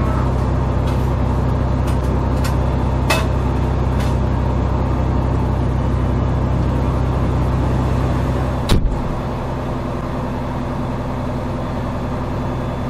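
Fire engine's engine running steadily, heard from inside the cab as a low, even drone. A few light clicks come in the first four seconds, and a loud knock about nine seconds in, after which the drone is quieter.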